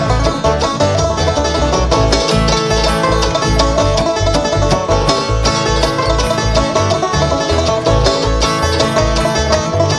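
Bluegrass string band playing live, an instrumental passage of busy banjo picking over guitar, with a bass line pulsing on the beat.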